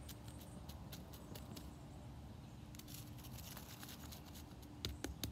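Faint steady hum with light scattered ticks; near the end, sharp knocks begin, about four a second: a smouldering wooden stick being beaten to put out its flame.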